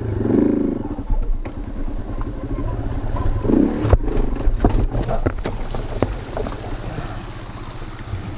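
Small single-cylinder four-stroke dual-sport motorcycle engine running at low revs with short throttle blips as it picks over creek-bed rocks, then a run of knocks and clatters from about four to six seconds in as the bike goes down on its side.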